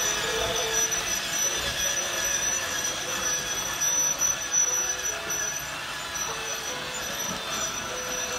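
Toy Christmas train set running around its plastic track: a steady motor whir and wheel rattle, with a thin tune of held notes above it.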